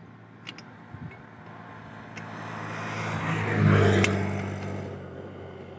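A vehicle driving past on the road, its engine hum and tyre noise swelling to a peak about three and a half seconds in and then fading away. A couple of light clicks sound during it.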